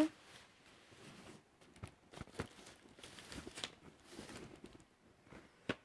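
Faint handling noises: light rustles and scattered clicks as a boxed product and its packaging are picked up and moved, with one sharper click near the end.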